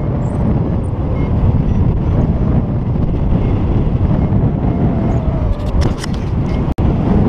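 Airflow of a paraglider in flight buffeting the camera's microphone: a loud, steady low rumble of wind noise. A few brief crackles come about six seconds in, and the sound cuts out for an instant just before the end.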